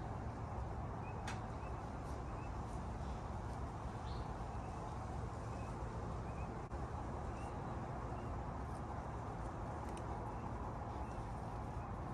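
Outdoor backyard ambience: a steady low background noise with short, faint bird chirps every second or so.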